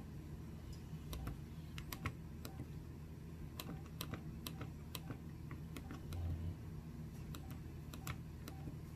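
Faint, irregular clicking of keys being pressed on an LG enV3 (VX9200) flip phone's keypad, about two presses a second with short pauses, over a low steady hum.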